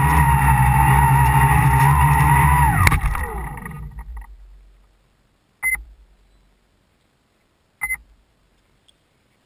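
Tricopter's three electric motors and propellers running with a wavering whine, then throttled off about three seconds in: after a click the whine falls in pitch and fades out over about two seconds. Two short electronic beeps follow, about two seconds apart.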